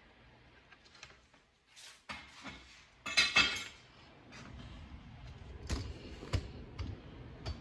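Kitchen counter handling noises as a seasoned raw steak is moved on a wooden cutting board: a brief loud clatter about three seconds in, then a few sharp knocks.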